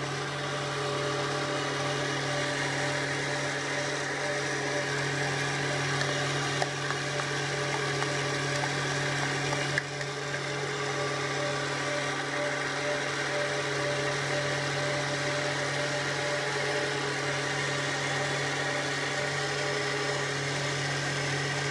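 Kenwood Chef A701A stand mixer's motor running steadily at speed 4, driving the A789 mincer attachment as it pushes cooked rice through the coarse screen. A constant electric hum with a few steady whining tones above it.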